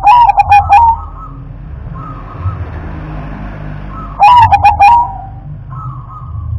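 Zebra dove (perkutut) singing: two loud phrases of quick, choppy cooing notes about four seconds apart, with fainter coos between them.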